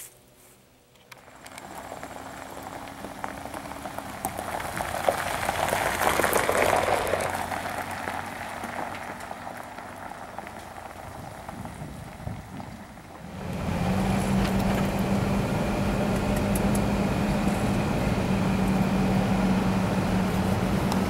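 Toyota Land Cruiser 80 series driving off over gravel, engine running and tyres crunching on the stones, loudest about six seconds in. About thirteen seconds in it changes suddenly to the steady drone of the engine and road noise heard from inside the cab on a paved road.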